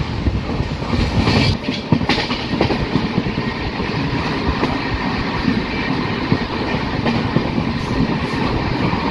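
Passenger train running at speed, heard from aboard a coach: a steady rumble with the clickety-clack of wheels over rail joints.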